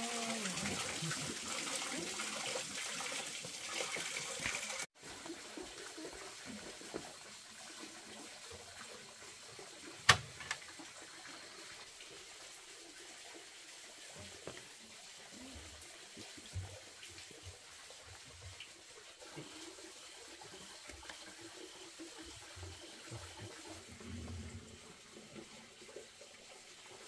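Running water for about the first five seconds, then, after an abrupt cut, a quieter steady background with scattered faint knocks and one sharp click about ten seconds in.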